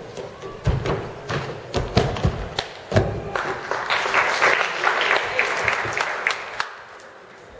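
Several heavy thuds of people landing on gym crash mats and wooden vaulting boxes in the first three seconds, then an audience clapping for about two seconds before it dies down.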